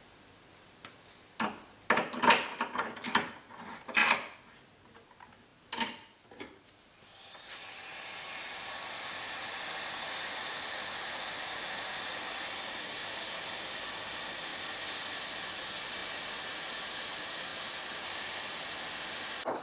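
A few sharp clicks and knocks, then from about eight seconds in the steady hiss of an Atten 858D hot-air rework station's handpiece blowing hot air onto an Itanium 2 processor's heat spreader to loosen its bond to the die. The hiss swells over a couple of seconds, holds steady and cuts off just at the end.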